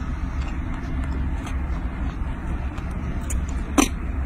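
Steady low outdoor rumble, like wind or distant traffic, with a single sharp click near the end.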